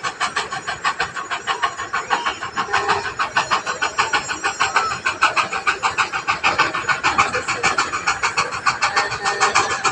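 Train running, with a fast, even rhythm of about six to seven beats a second.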